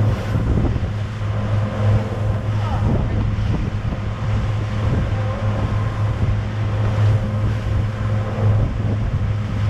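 Twin Suzuki 150 outboard motors running steadily at speed, a low even drone under the rushing wash of the wake and wind buffeting the microphone.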